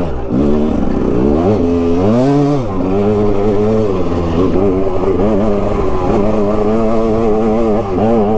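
2006 KTM 200 XC's single-cylinder two-stroke engine running under load as the dirt bike climbs a trail. The revs rise and fall with the throttle, most clearly around two seconds in.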